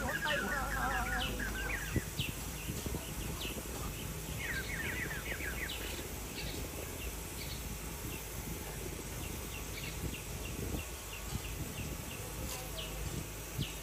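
Small birds chirping: scattered short chirps, with a quick run of them about five seconds in, over a steady low outdoor rumble.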